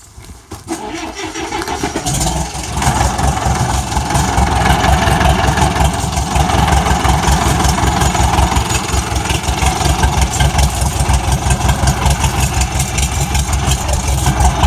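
TD-7E crawler bulldozer's diesel engine starting up over the first few seconds, then running steadily with a fast low pulsing.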